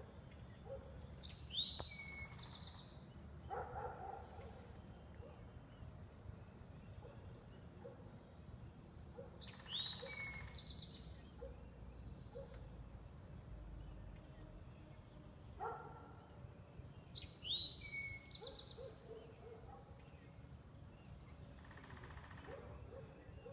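Wild birds singing: one bird repeats a short high song phrase three times, about eight seconds apart, with lower hooting notes in between, over a steady low background rumble.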